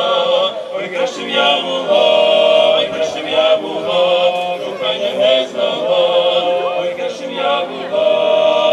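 Male vocal quartet singing a cappella in harmony, in phrases of long held notes with short breaks between them.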